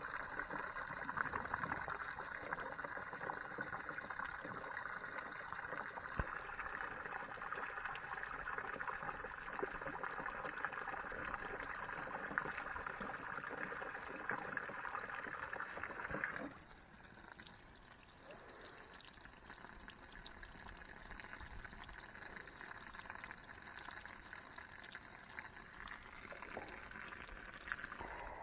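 A spray of water splashing steadily onto grass, a continuous hiss that turns markedly quieter a little past halfway.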